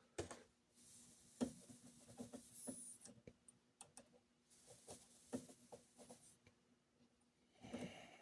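Near silence, broken by faint scattered clicks and taps of hands handling a small wire and metal parts while soldering, with a few stretches of soft hiss.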